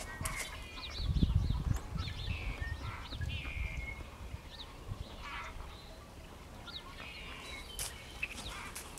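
Wild birds chirping and twittering, many short calls scattered throughout, with a brief low rumble about a second in.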